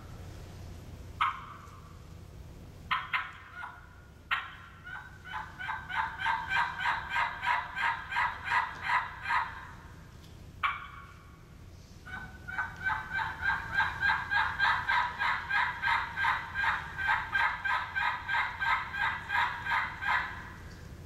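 Turkey mouth call imitating an adult hen's assembly call: a few single sharp notes, then two long, evenly paced runs of yelps at about three a second.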